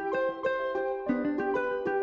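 Background music of plucked ukulele notes picking out a quick melody, several notes a second.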